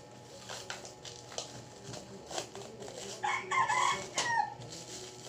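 A rooster crowing once, about three seconds in, with a falling end to the call. Under it, clear plastic packaging crinkles as it is unwrapped from a cable.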